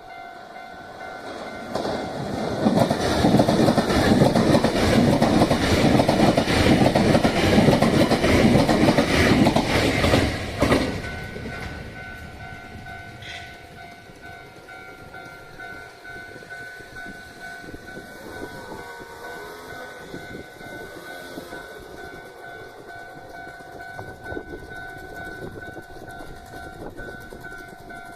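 A Hankyu train passes over the level crossing, its wheels loud on the rails for about eight seconds before the sound drops away suddenly. The crossing's warning bells ring steadily throughout.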